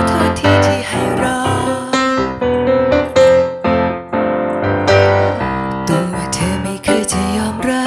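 Roland stage piano playing a song accompaniment, a run of chords and melody notes.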